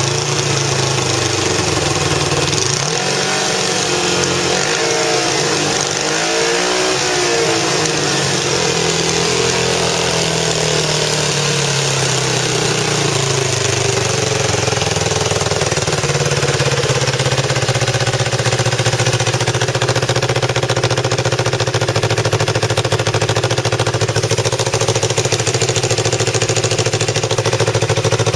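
2006 Kawasaki Ninja 250's parallel-twin engine running through its muffler, revved up and down a few times a few seconds in, then idling steadily.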